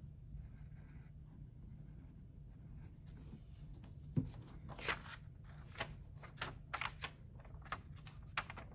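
Pencil scratching on tracing paper, faint at first, then a run of short, sharper scratches and paper rustles from about halfway through as the sheet is pressed down and handled.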